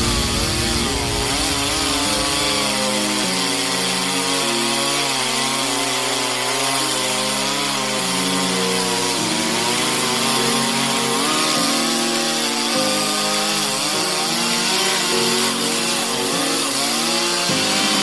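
Chainsaw running steadily while cutting through a standing tree trunk, its pitch wavering as the chain bites. Background music with held notes plays over it.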